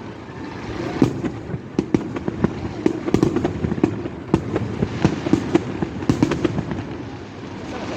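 Aerial fireworks bursting in a rapid barrage, many overlapping bangs and crackles, thinning out near the end.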